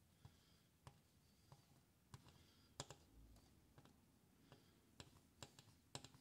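Faint, scattered ticks and taps of a soldering iron tip and solder wire against copper foil on stained glass, over near silence. The solder is not sticking, because an oxide layer on the copper keeps it from adhering.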